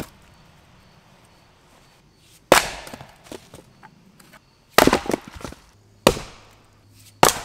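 Splitting axe striking wood rounds on a chopping block: four sharp cracks a second or two apart, the second and the last each followed by a quick clatter of smaller knocks.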